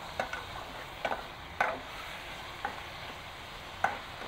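Fish pieces and garlic frying in oil in a metal pot with a steady sizzle, while a metal spatula stirs them, clinking and scraping against the pot about five times.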